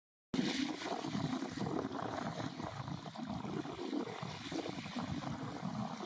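Beach ambience: a steady rushing of surf and wind, with irregular buffeting in the low range.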